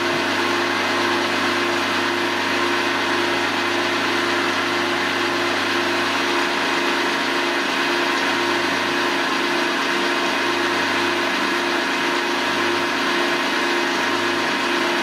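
Milling machine spindle running steadily at speed with a spiral end mill turning free beside the steel disc, a constant motor hum with an even hiss and no change in pitch.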